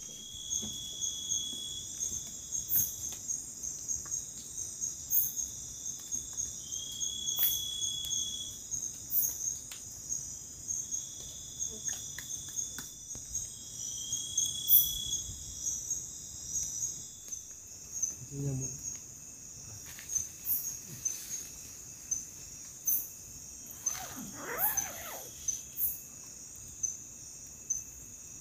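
Night chorus of crickets and other insects in tropical forest: a steady, high-pitched trilling. Through the first half a second insect adds a repeated call about every two seconds.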